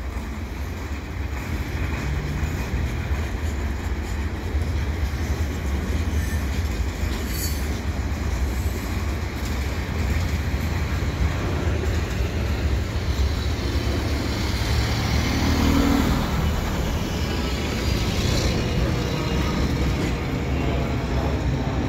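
Freight train rolling slowly past, with flatcars carrying tanks close by and a second freight train moving on the far track: a steady low rumble of wheels and cars.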